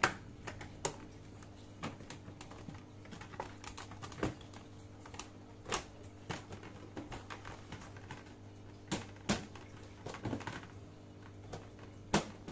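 Polypropylene walls of a Naturehike folding storage box being lifted and snapped into place: irregular plastic clicks and knocks.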